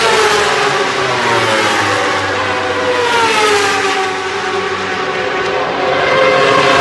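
1000cc World Superbike race bikes at full throttle on the circuit, their high engine note sweeping down and up in pitch several times as they rev and pass.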